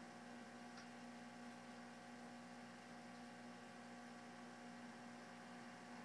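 Near silence: a faint, steady hum made of a few fixed tones over light hiss.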